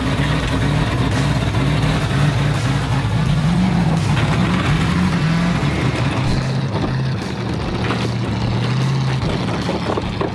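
Monster truck's engine running under load as it tows a line of wrecked car bodies, with the noise of the wrecks dragging over gravel and grass.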